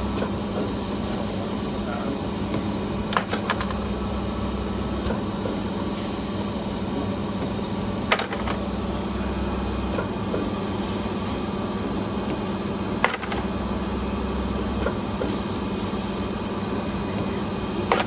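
CNC spring forming machine running steadily as it forms enamelled copper wire, with a steady hum and a lower rumble that starts and stops in turns. A sharp clack comes about every five seconds, once per forming cycle.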